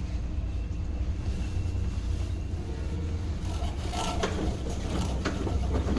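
Samsung washing machine running with a steady low rumble, a few clicks or knocks coming through about four and five seconds in.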